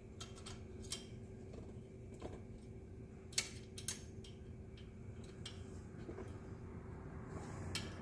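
Scattered light metal clicks and clinks of steel drag springs and parts being worked onto a tubing anchor catcher housing, with two sharper clicks about three and a half seconds in, over a steady low hum.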